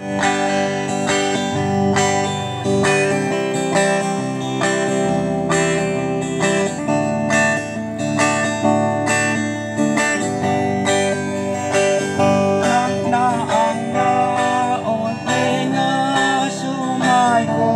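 Amplified guitar playing a song's instrumental introduction with a steady strummed beat.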